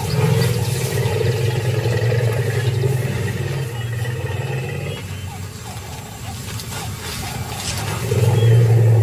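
African elephant giving long, low rumbles: one from the start to about halfway through, and a second, louder one near the end.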